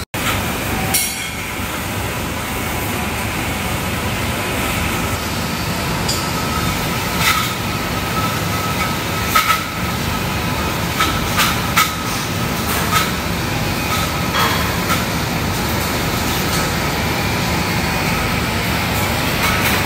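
Steady din of a pig farrowing barn: a loud, even rumble and hiss with a faint high whine, broken by about a dozen sharp knocks or clanks, some in quick pairs.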